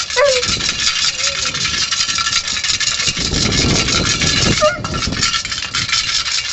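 Eight-week-old cane corso puppies giving a few short, high whines over a steady hiss and low rumble.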